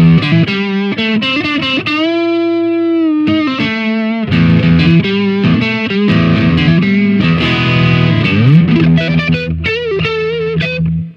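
Fender Telecaster electric guitar on its neck pickup, played with overdrive through a Marshall 6100 tube amp: a lead phrase of single notes and double-stops with string bends and vibrato, a long held note about two seconds in and a rising slide near the end. The tone is bright and very "stratty".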